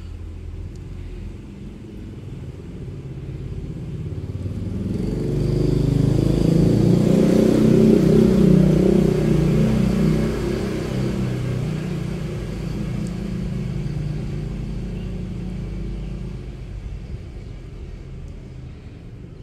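A motor vehicle passing by: a low engine sound that grows louder, is loudest about eight seconds in, then slowly fades.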